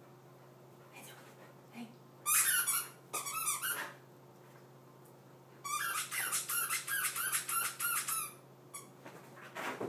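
A squeaky toy squeaked over and over by a dog's chewing: two short bursts of quick squeaks a couple of seconds in, then a longer run of rapid squeaks from about six to eight seconds.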